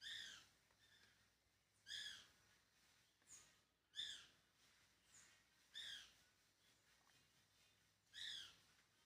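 A bird calling with a short, downward-sliding note repeated about every two seconds, with a couple of faint high chirps between.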